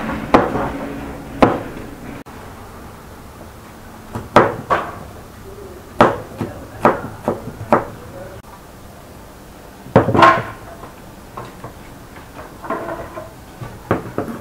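A kitchen knife chopping on a wooden cutting board: irregular single cuts and short runs of two or three, with a pair of louder strokes about ten seconds in and lighter taps near the end.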